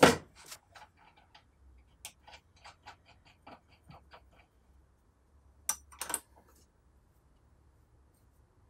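Small hand-work sounds of a sanding sleeve, washer and nut being fitted onto the spindle of a Triton oscillating spindle sander that is switched off: a knock at the start, a run of light ticks and clicks over the next few seconds, then two sharp clacks about six seconds in.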